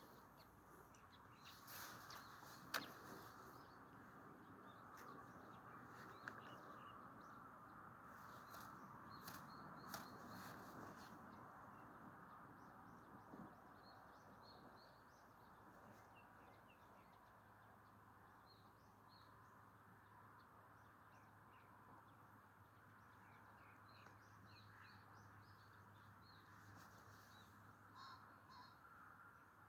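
Near silence: faint outdoor ambience with distant birds calling and a few faint ticks.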